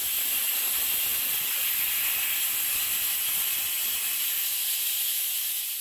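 Aluminium pressure cooker on a gas burner letting steam escape past its weight valve: a steady hiss that cuts off suddenly near the end. This is the cooker whistling at full pressure, one of the whistles counted to time the rice.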